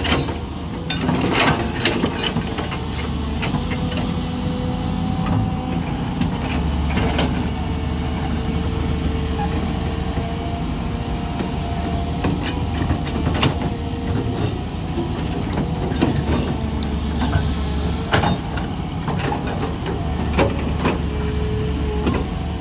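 Hydraulic excavator at work: its diesel engine runs with a low drone that grows louder for long spells, while the steel bucket scrapes and drops gravelly sand and earth, with frequent sharp clanks and knocks of stones.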